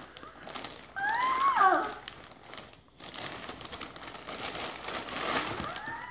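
Plastic shopping bag crinkling and rustling as a child's hands rummage inside it and pull a dress out. About a second in, a child's voice gives one short call that rises and then falls in pitch.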